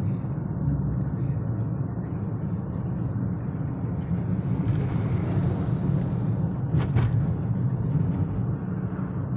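Steady low rumble of a car's engine and tyres heard from inside the cabin while driving. A louder rush of an oncoming lorry passing swells around five seconds in, and a single sharp click sounds about seven seconds in.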